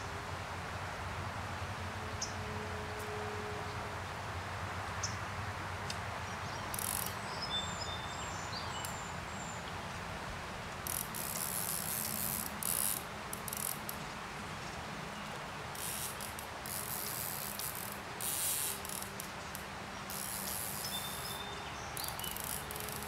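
A fly reel's click-and-pawl ratchet buzzes in repeated bursts of a second or two, mostly in the second half, as line runs on and off the spool. Underneath is the steady rush of flowing stream water.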